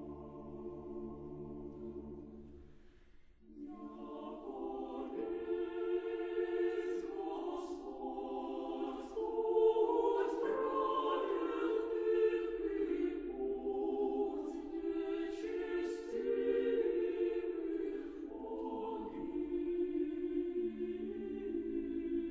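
A choir singing Russian Orthodox sacred music unaccompanied, in long held chords; the singing breaks off briefly about three seconds in, then a new phrase begins and swells.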